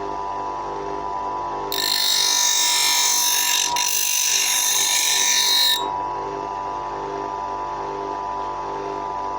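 Bench grinder motor running steadily; about two seconds in a scissor blade is pressed against the spinning wheel, giving a loud high-pitched grinding hiss for about four seconds before the blade is lifted off and only the motor's hum remains.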